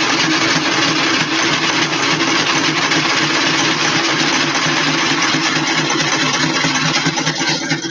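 Electric sewing machine running steadily at speed, stitching through leather. It stops near the end.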